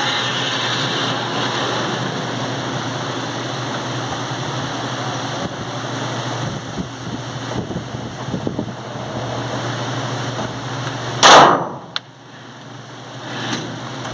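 A single loud 9mm Glock 17 pistol shot about eleven seconds in, with a short echoing tail, over a steady background drone; a faint sharp click follows under a second later.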